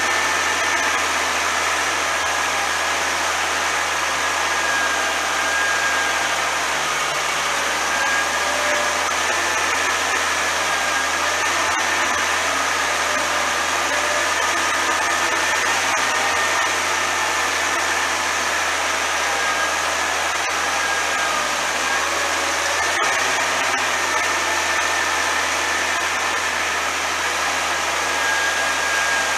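New Holland TVT 145 tractor's six-cylinder diesel engine running steadily under load while pulling a five-furrow plough, heard from beside the exhaust stack outside the cab. A steady high whine runs over the engine noise.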